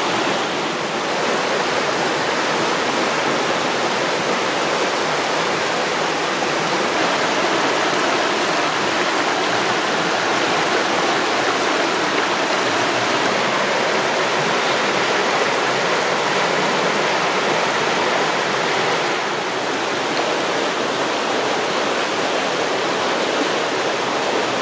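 Creek in flood, high and muddy, rushing steadily over and around snags and fallen branches: a loud, even rush of fast water.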